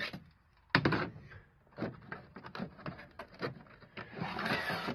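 A spirit level knocking and clicking against a wooden rack as it is handled, then scraping along the timber battens as it is slid into its slot, from about four seconds in.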